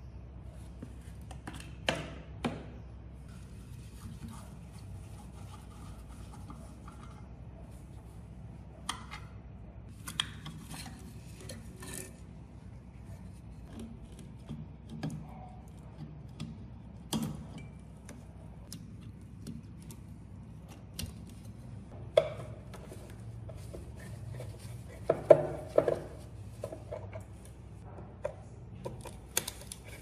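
Scattered metal clinks, knocks and short scrapes of hand tools and sheet-metal parts being handled while dismantling an old refrigerator's compressor compartment: the drip tray being pulled out and a screwdriver working at the compressor relay and wiring. The loudest is a quick run of knocks about 25 seconds in.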